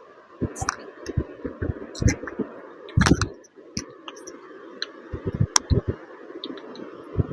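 Irregular soft knocks and clicks of people shifting and handling on a treatment table, with a louder cluster about three seconds in, over a steady background hiss.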